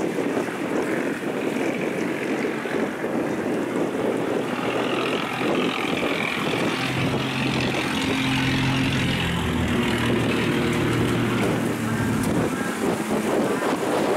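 A river barge's diesel engine drones as it passes. The drone comes up about five seconds in and fades near the end, over a steady rush of wind on the microphone.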